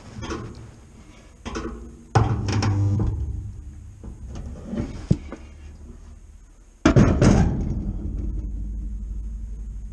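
Spot welder firing twice, about five seconds apart, fusing the steel panels of a classic Mini's rear window frame. Each weld starts suddenly with a loud low buzz that fades over a second or two. A few small knocks of clamps and handling come before the first.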